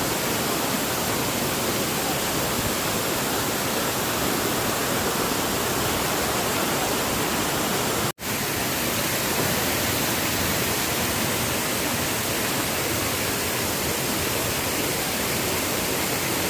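Waterfall: a steady, even rush of falling water that cuts out for a split second about eight seconds in.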